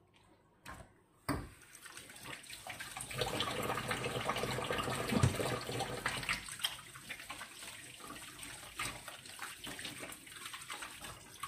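Kitchen tap running into a sink, water splashing steadily. It comes on with a knock about a second in, is strongest in the middle and eases off toward the end.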